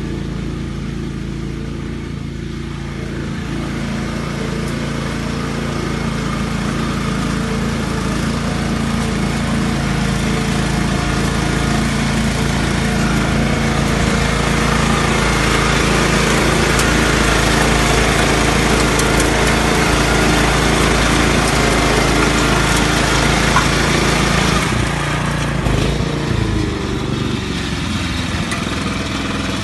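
Small engine of a self-propelled hazelnut harvester with a sweeper brush running steadily, with a noisy, busy layer over it that builds through the middle. About 25 s in, the noise drops away and the engine note changes.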